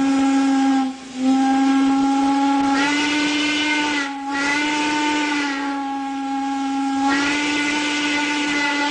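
Steam locomotive whistle blowing long, steady blasts, with a brief break about a second in and a shorter dip about four seconds in.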